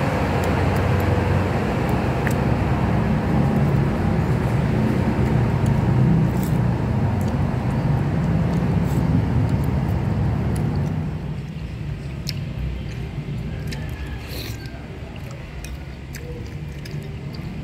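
Eating lomi noodle soup: slurping, and spoons clinking against ceramic bowls, over a low steady rumble of road traffic. The rumble drops away sharply about eleven seconds in, leaving quieter scattered spoon clicks and eating sounds.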